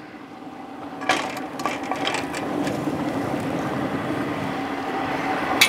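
A steady mechanical hum that grows slightly louder, with a few light metallic clicks about one to two seconds in as a deep-fried turkey on its wire lifting hook is set down in a pan.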